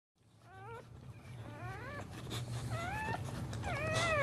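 A boxer dog in labour whining: four short, high, rising whines about a second apart, over a steady low hum.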